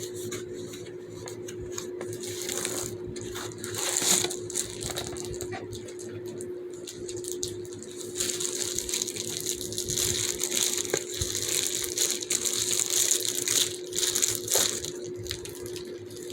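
Hands squeezing and fiddling with a squishy fidget toy, giving irregular rustling, crinkly handling noise that gets busier about halfway through, over a steady low hum.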